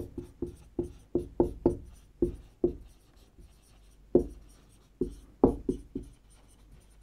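Whiteboard marker writing: a quick string of short strokes and taps of the tip on the board, close together for the first three seconds, then fewer and further apart.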